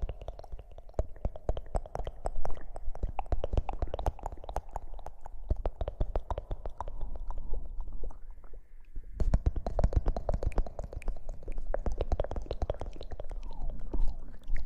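Close-miked ASMR rustling: dense, rapid crackles and clicks over a low rumble, easing off briefly about eight seconds in before picking up again.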